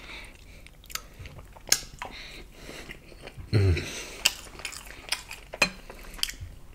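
Close-miked mouth sounds of someone chewing a mouthful of jambalaya: wet chewing with sharp lip and tongue clicks. A short hummed 'mm' falls in pitch about three and a half seconds in.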